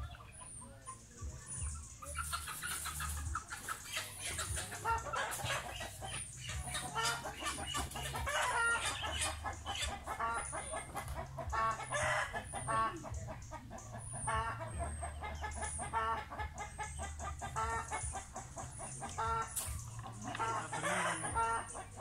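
Chickens clucking in a steady run of short, repeated calls.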